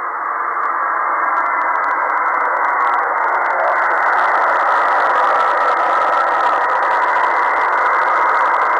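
Kenwood HF transceiver's speaker giving a steady hiss of band noise on the 20-metre band at 14.177 MHz in upper sideband. The static is held to a narrow, muffled voice range by the receive filter, and no station's voice comes through it.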